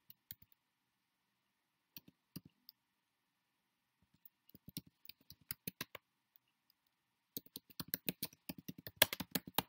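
Keystrokes on a computer keyboard as a phrase is typed: a few scattered key clicks at first, a quick run of them about halfway through, and a denser run over the last two seconds.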